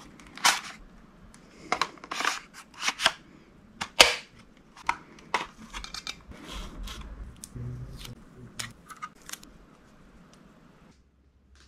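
Sharp plastic clicks and snaps from handling a DJI Mini 3 Pro drone as its folding arms are swung open and the clear gimbal protector is pulled off, a dozen or so irregular clicks in a small room. They stop about a second before the end.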